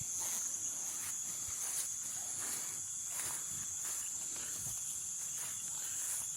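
Rainforest night chorus of insects: a steady high-pitched trill, with another fainter steady tone below it and scattered short clicks and chirps.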